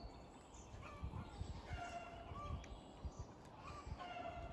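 Birds calling in short, repeated pitched calls, about one a second, over a low rumbling background noise.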